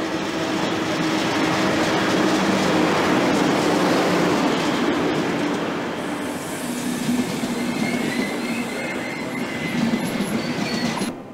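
Passenger train hauled by an electric locomotive rolling past close by along a station platform, its wheels rumbling on the rails, with a thin wheel or brake squeal in the middle.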